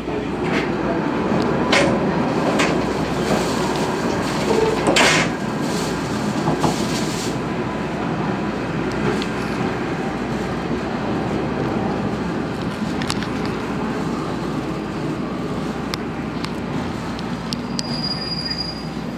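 Train running noise heard from inside a passenger coach: a steady rumble of wheels on rail with a few sharp clacks in the first few seconds, easing a little as the train slows into a station. A brief high squeal comes near the end.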